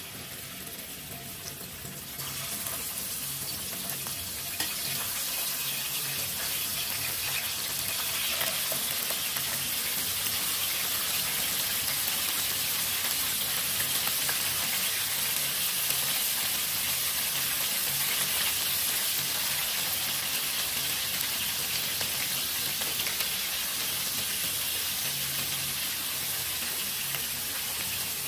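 Raw lamb pieces sizzling as they fry in hot oil in a steel wok. The frying hiss grows louder over the first few seconds as more meat goes into the pan, then holds steady.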